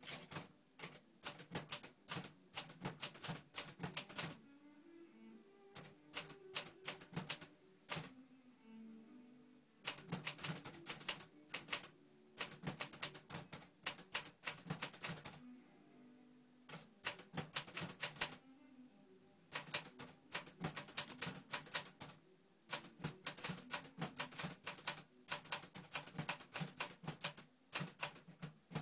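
Korean Hangul typewriter being typed on: rapid runs of key strikes broken every few seconds by short pauses of a second or two.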